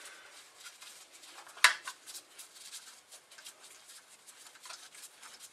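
Light metal clicks and scraping of an Allen key working on the bolts of a rotary vane vacuum pump, with one sharp click about one and a half seconds in.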